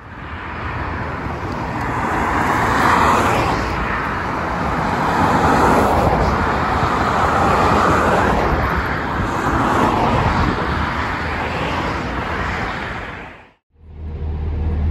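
Street traffic: cars passing one after another, tyre and engine noise swelling and fading as each goes by. Near the end it cuts off abruptly and is replaced by a steady low hum.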